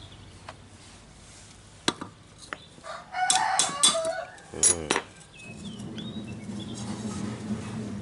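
Sharp metallic clicks and clinks from a washing-machine spin-dryer motor being handled as its stator is pulled out of the steel housing. A chicken clucks in short calls around the middle. A low steady hum comes in after about five and a half seconds.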